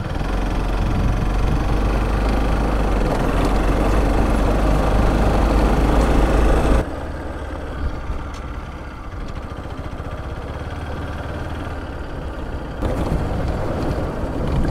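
Vehicle engine running on the move, with a heavy low rumble that drops off abruptly about seven seconds in and comes back near the end.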